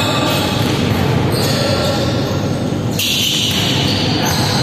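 Indoor volleyball rally in an echoing sports hall: the ball struck several times as it is spiked, blocked and dug, over a steady, loud din.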